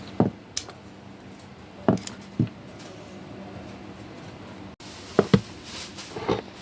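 Several short, dull knocks and taps, a few seconds apart, with two in quick succession near the end, over a faint steady hum.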